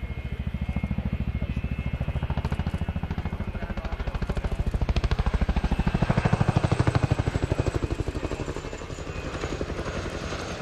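Boeing Chinook HC2 helicopter's tandem rotors beating in a fast, even rhythm over the engines' running. It grows loudest about six to seven seconds in, then eases off.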